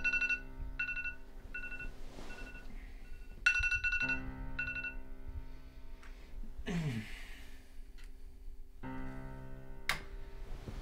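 A mobile phone ringtone of short high beeps repeating about every half second, stopping about five seconds in, over a film score of sustained low synth chords. A falling tone sweeps down near the middle and a sharp click comes near the end.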